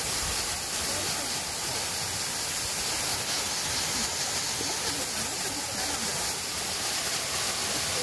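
Waterfall plunging into a rock pool: a steady rushing hiss of falling water.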